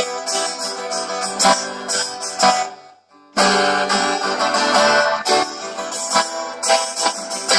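Takamine twelve-string acoustic guitar strummed and picked, plugged in and played through an Axess Barrel Blaster battery-powered Bluetooth speaker. The playing breaks off for about half a second about three seconds in, then carries on.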